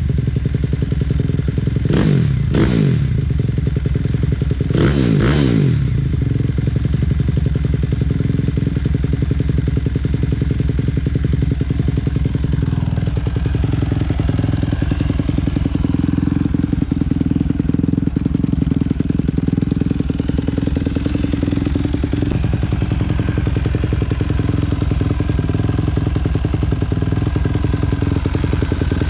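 Suzuki RM-Z250 single-cylinder four-stroke dirt bike engine, revved in two quick throttle blips in the first few seconds and then running steadily at idle.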